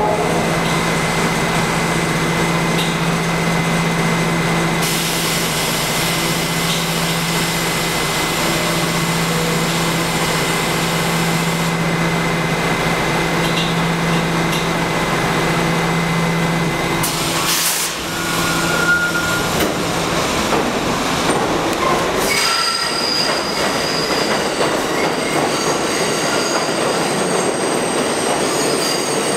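New York City subway train in an underground station: a steady hum and rumble of train equipment and rolling stock. After a short break about 18 seconds in, the R68A train moves along the track with high-pitched wheel squeal.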